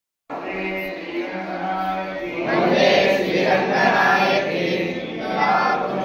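A group of voices chanting a devotional hymn together, starting just after a brief cut to silence and growing louder about halfway through.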